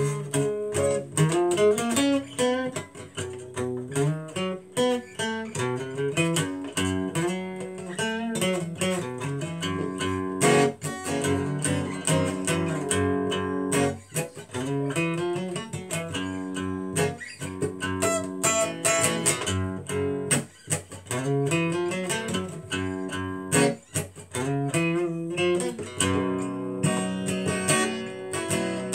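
Yamaha acoustic guitar played solo, an instrumental passage of picked notes and strummed chords without singing.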